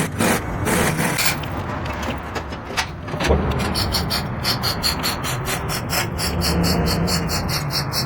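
A hand tool scraping back and forth over a workpiece, as in filing or scraping a surface by hand. The strokes become fast and even, about four a second, from about halfway through.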